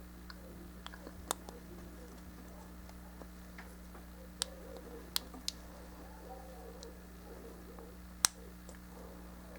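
Plastic model-kit parts clicking and tapping as they are handled and pressed together. There is a handful of sharp clicks, the loudest about eight seconds in, over a steady low hum.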